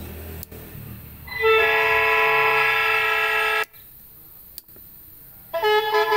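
Electronic 'telolet' horn module sounding through a TOA horn speaker: a single steady horn blast of about two seconds starts a second and a half in and cuts off sharply. Near the end, a quick stepping multi-tone telolet melody begins.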